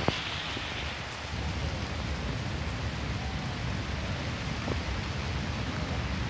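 Steady summer rain shower falling on wet paving and grass, a constant hiss that softens a little after about a second.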